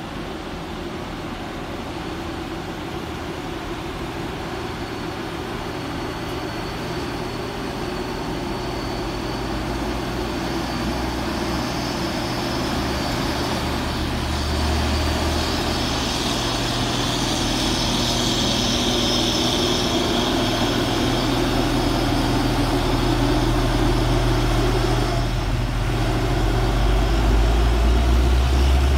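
Diesel trucks driving past, their engines and tyres growing steadily louder as a loaded six-wheel cargo truck comes up and passes close near the end.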